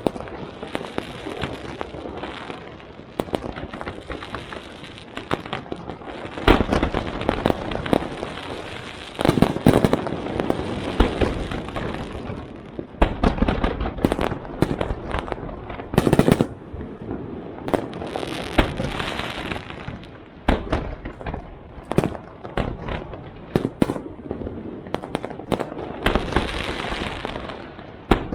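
Fireworks going off in a dense barrage: many sharp bangs and crackles in quick succession, with louder clusters of bursts every few seconds.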